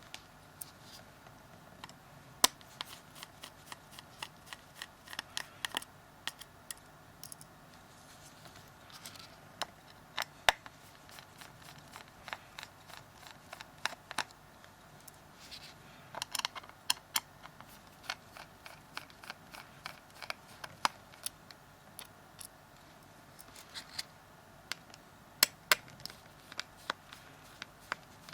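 Small Phillips screwdriver working the ten screws out of a Samsung Galaxy S3's edge: irregular light clicks and taps of metal on the phone's plastic frame, with a few sharper clicks.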